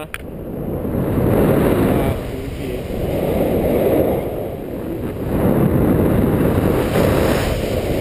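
Wind rushing over a helmet-mounted action camera's microphone in tandem paraglider flight, swelling and easing about three times as the glider banks through turns.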